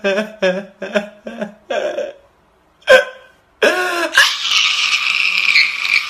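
A man crying: a run of short gasping sobs, one sharper cry about three seconds in, then a long, loud wail.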